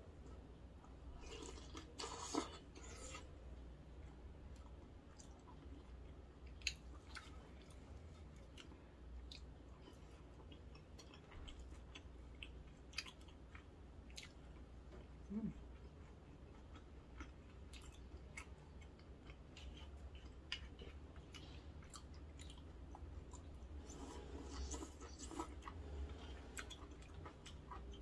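Close-miked eating sounds: a person chewing seafood noodles and kimchi, with soft wet mouth clicks scattered throughout. There is a louder wet burst of noodle slurping about two seconds in, and another stretch of slurping near the end.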